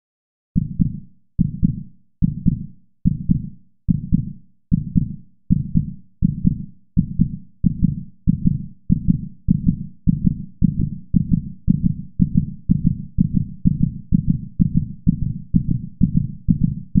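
Heartbeat sound effect: a regular train of low double thuds, about one a second at first and gradually quickening.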